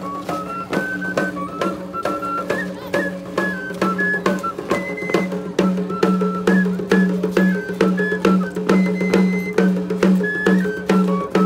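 Traditional flute and drum music for the Tlacololeros dance: a high flute plays a melody in short stepping notes over a steady low drone, with an even drum beat of about three strokes a second.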